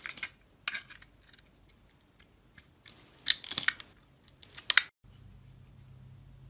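Soap being cut, with crisp cracking and crunching strokes in quick clusters. The cutting stops abruptly about five seconds in.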